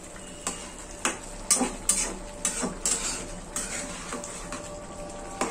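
A spatula stirring curry in a frying pan, scraping the pan and knocking against it with irregular clicks, about eight in all.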